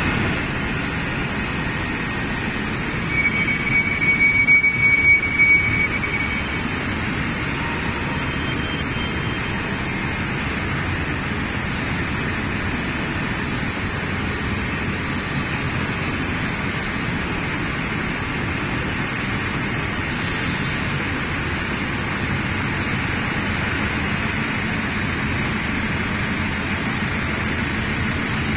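Forklift running steadily with its hydraulics working as it turns a molten-aluminium transfer ladle, over steady factory machine noise. A brief louder stretch with a high whine comes about three to six seconds in.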